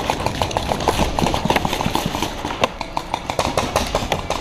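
Paintball markers firing: a fast, uneven string of sharp pops.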